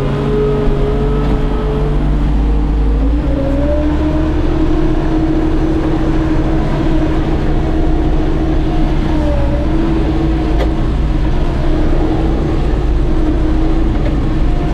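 Bobcat skid steer's diesel engine running steadily, with a whining tone that dips and then rises in pitch a few seconds in.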